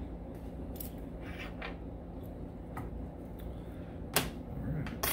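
Light clicks and taps of tweezers and a small parts tray being handled, with one sharp tap about four seconds in, over a low steady hum.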